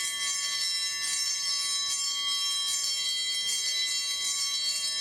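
Motorcycle brake disc played as a bell, struck rapidly and repeatedly so it rings continuously with many high metallic overtones.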